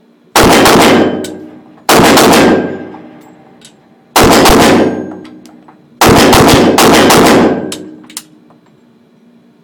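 Five pistol shots from a Glock 9mm, spaced about one to two seconds apart, the last two close together. Each shot is very loud and followed by a long echo.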